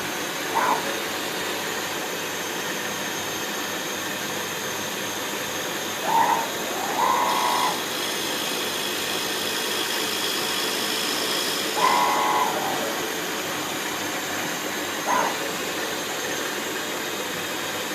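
CNC milling machine high-speed milling a steel flywheel: a steady hissing running sound broken by several short, high whines, with a brighter hiss for a few seconds in the middle.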